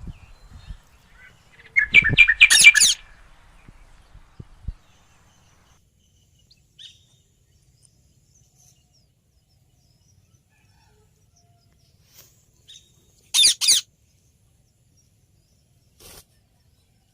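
Green ringneck parakeets calling: a quick run of high, repeated calls about two seconds in, then a long quiet stretch and a short pair of calls near the end.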